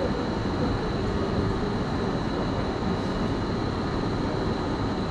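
Steady low rumble and hiss of railway station background noise, with a faint steady high whine on top and no distinct events.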